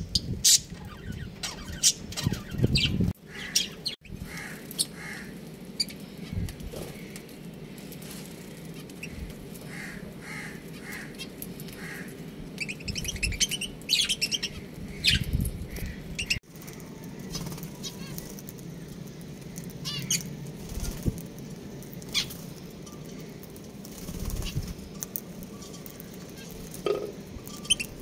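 Budgerigars and lovebirds in an aviary chirping and twittering in short, scattered bursts, with sharp clicks and fluttering among the calls.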